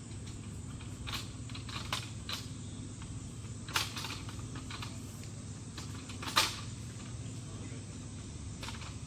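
Several sharp clicks or snaps, the loudest two about four and six and a half seconds in, over a steady low hum.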